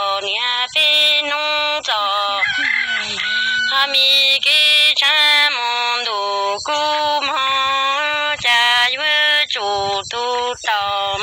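A single voice singing Hmong kwv txhiaj, chanted sung poetry: long held notes in short phrases, each sliding down in pitch at its end.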